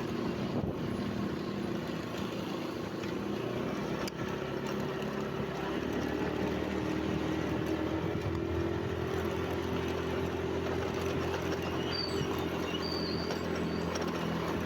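Steady drone of a running engine: an even low hum under a wash of noise, growing slightly louder about halfway through. A few faint, short, high-pitched whistles sound near the end.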